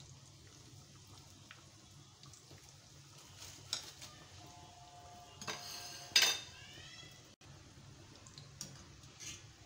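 Breaded potato bites frying in hot oil in a steel wok, a faint steady sizzle, with a wire-mesh skimmer clinking against the pan. The loudest clink comes about six seconds in and leaves a short metallic ring.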